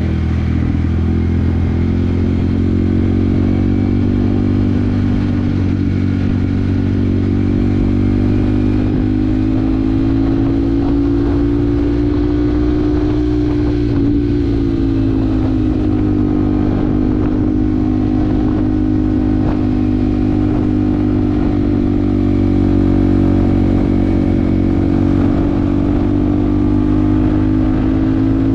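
Yamaha WR155R's single-cylinder engine running at a steady cruise. Its pitch rises slightly and eases back about halfway through, then holds even.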